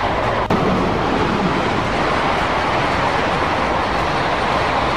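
China Railway CR400 Fuxing high-speed train passing at speed: a steady rush of wheel and air noise. A brief drop and jump about half a second in marks a splice from one passing recording to the next.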